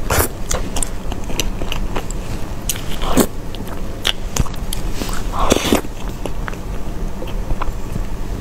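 Close-miked mouth sounds of eating soft cream cake: wet smacking and sucking of cream off the spoon, with small tongue and lip clicks. Louder wet bursts come just after the start, about three seconds in and about five and a half seconds in.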